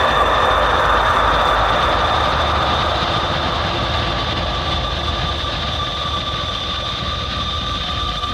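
Dark ambient drone: a steady, rumbling wash of noise with held high tones above it, easing slightly in level after about three seconds.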